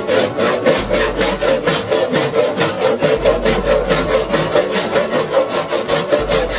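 Hand saw cutting through the corner of a small wooden box in fast, even back-and-forth strokes.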